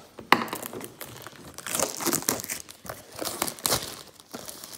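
Packaging crinkling and tearing in irregular bursts as a retail blaster box of trading cards is torn open.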